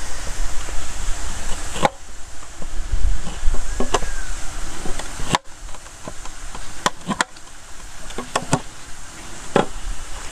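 Knife scoring slits into a whole catla fish on a steel plate: a series of sharp, irregular clicks and taps as the blade cuts through the skin and knocks against the metal plate.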